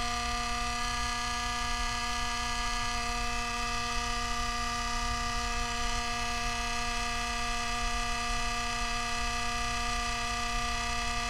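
MSI MS-16Q2 laptop's CPU fan running with a steady buzzing tone, its blade scraping the metal. The owner puts this down to a tilted blade, from a cracked bearing or an uneven motor.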